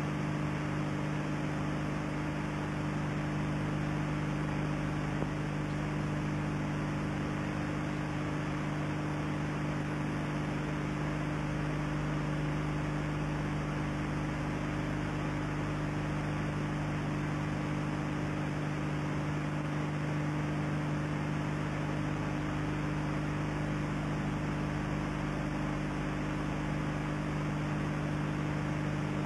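Steady low electrical hum in several tones over a constant hiss, the noise floor of an old video recording's soundtrack.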